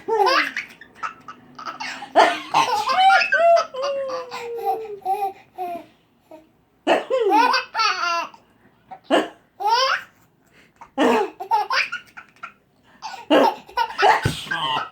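A baby belly-laughing in repeated bouts, each set off by a short, sharp fake sneeze from an adult; the laughs are high squeals that slide down in pitch, with a brief pause about six seconds in.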